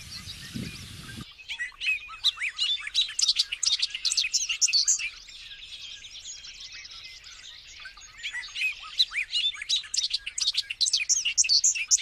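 Male bobolink singing: a rapid tumble of short, jangling notes that rise and fall, starting about a second in. It comes in two long outbursts with a quieter stretch of song between them.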